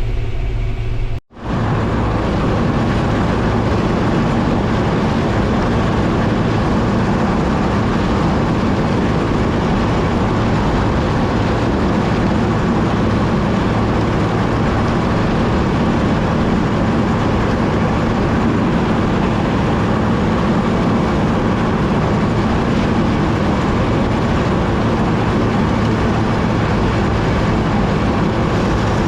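Combine harvester running steadily while harvesting corn: an even, unbroken machine drone, cut off briefly about a second in.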